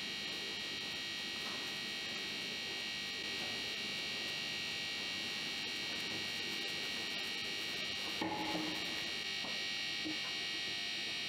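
Steady high-pitched electrical whine made of several held tones, with a faint brief rustle about eight seconds in.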